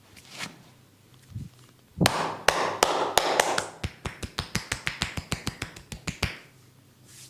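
Hands striking skin in a percussive body massage: a run of about twenty sharp slaps that quicken to several a second, then stop about six seconds in.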